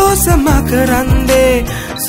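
Sinhala pop song playing: a melody line over bass and a drum beat.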